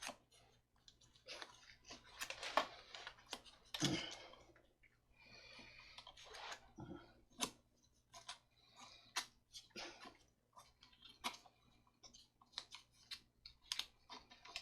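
220-grit sandpaper rubbing on corroded copper outlet wire ends to polish off the oxidation, in stretches of scratchy rubbing, with scattered small clicks and taps from handling the wires.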